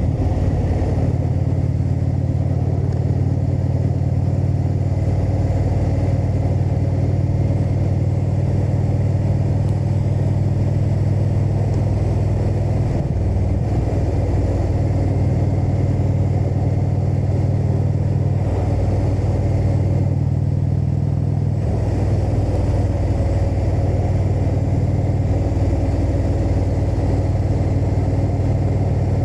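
Indian motorcycle's V-twin engine running under way, with wind and road noise. The engine note shifts a few times in the middle as the throttle or gear changes.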